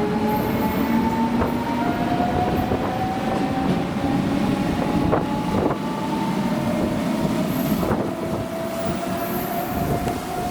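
CP Lisboa suburban electric multiple unit moving through the station, its motor whine falling slowly in pitch as the train slows, over rumble and occasional wheel clicks on the rail joints.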